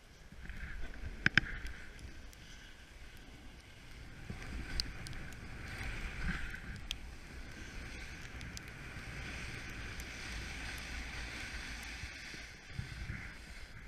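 Snowboard sliding and carving over snow: a steady swishing hiss that swells and eases with the turns, with low wind rumble on the microphone. A sharp knock about a second in.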